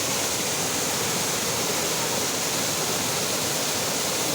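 Steady rushing of a monsoon-fed waterfall, an even noise with no breaks.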